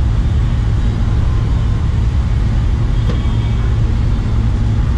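Steady low rumble of outdoor background noise, with one faint knock about three seconds in.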